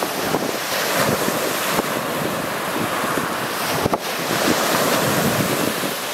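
Lake Superior waves breaking and washing onto a rocky, pebbly shore, with wind buffeting the microphone. It is a steady, loud rush that swells a little about four seconds in.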